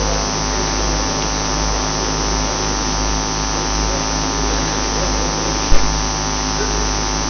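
Steady electrical mains hum and buzz with many even tones over room noise, with one sharp knock about six seconds in.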